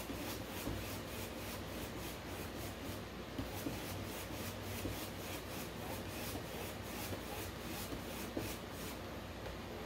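Paintbrush stroking wet acrylic paint back and forth across a canvas board: a faint, quick, regular brushing scratch.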